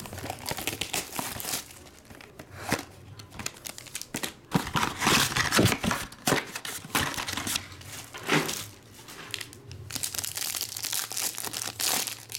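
Plastic shrink wrap crinkling as it is torn off a trading-card box, then a foil card pack crinkling and tearing open near the end, in a string of short crackling bursts.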